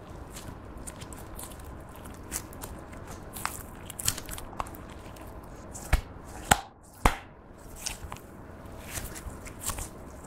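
Pink slime, clear slime with makeup mixed in, being stretched, folded and squeezed by hand, giving a stream of small sticky crackles and pops. Three louder sharp snaps come a little past halfway.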